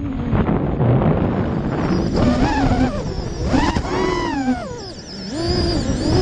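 FPV freestyle quadcopter's brushless motors whining, the pitch swooping up and down as the throttle is punched and cut, briefly dropping away about five seconds in, with wind rushing over the onboard microphone.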